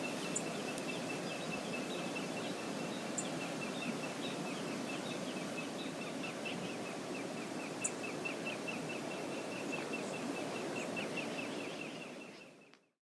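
Steady rush of river water, with a long run of short, high chirps repeated several times a second over it. The sound fades out near the end.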